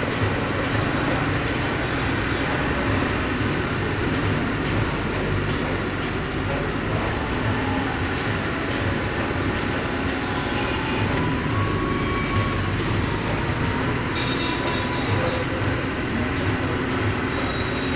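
Indian Railways passenger coaches rolling past close by: a steady rumble of wheels on the track with faint squealing tones. A brief shrill high-pitched sound rises over it about fourteen seconds in.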